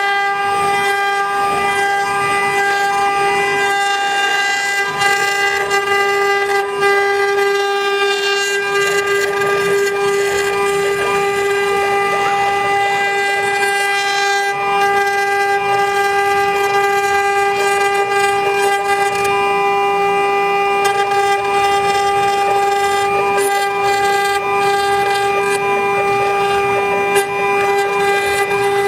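Spindle motor of a desktop 9018 CNC router whining steadily at one high pitch with a stack of overtones, over a noisy hiss as its engraving bit carves a relief into a wooden panel.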